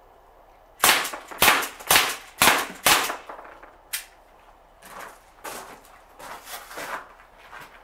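Sig Sauer MPX .177 semi-automatic pellet pistol, running on regulated high-pressure air from a bulk-fill tank, firing five quick shots about half a second apart. A lone sharper snap follows about four seconds in, then a few fainter knocks.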